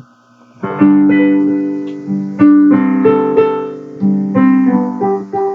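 Piano playing a slow introduction, single notes and chords struck and left to ring, starting about a second in.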